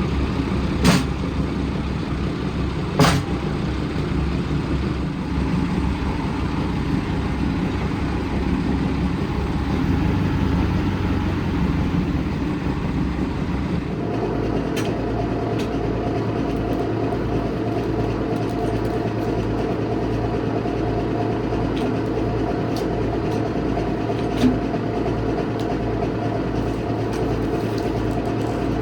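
A large engine running steadily, with a couple of sharp knocks in the first few seconds. About halfway through the sound changes abruptly to a steadier note with an even low pulsing.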